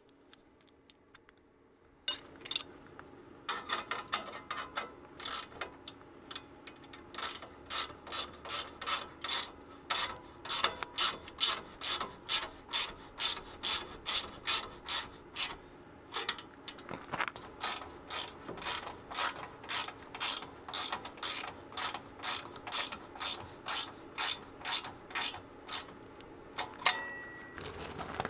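Hand ratchet wrench turning a bolt on the tractor's grill guard: rapid pawl clicking in back-and-forth strokes, about two strokes a second, starting about two seconds in.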